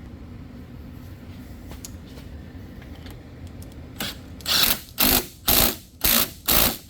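A ratchet tightening the brake caliper bolts: five short bursts of rapid clicking about half a second apart, starting about four seconds in, over a low steady hum.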